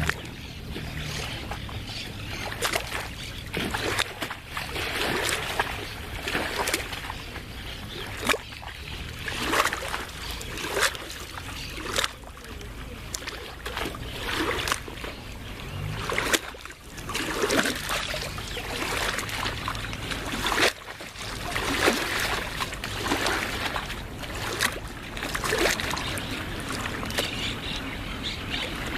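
Small waves of lagoon water lapping and splashing in an uneven run of little slaps.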